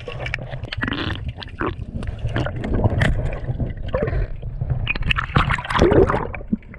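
Sea water splashing and gurgling close to the microphone, in irregular bursts over a steady low rumble of moving water.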